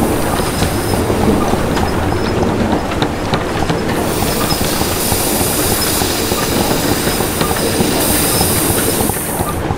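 Animated soundtrack of an iron slitting mill at work: a steady clanking, grinding rumble of iron rolls and cutters, dotted with short high metallic squeals, as a red-hot iron bar is slit into rods. A high hiss joins about four seconds in.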